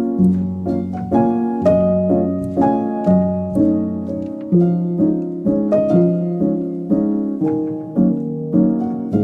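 Instrumental background music: a slow melody of short, decaying notes, about two a second, over long-held bass notes.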